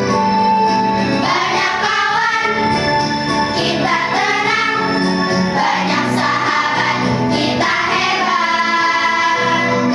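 Children's choir singing a melody together over musical accompaniment.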